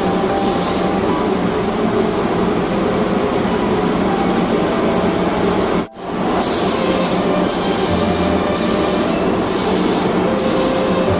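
Steady, loud hiss of a paint spray gun spraying a new coating, cut off briefly about six seconds in.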